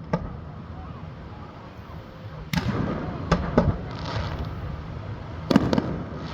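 Fireworks shells bursting: a small pop at the start, a loud bang about two and a half seconds in followed by two smaller reports, and a quick cluster of bangs near the end.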